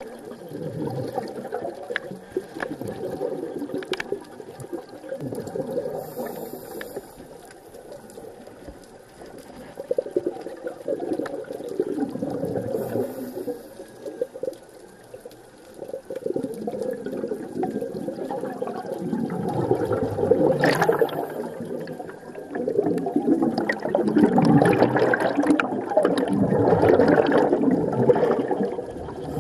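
Muffled underwater rushing and bubbling heard through an underwater camera housing, most likely a scuba diver's exhaled bubbles, swelling and fading in surges of a few seconds and loudest over the second half, with a few faint clicks.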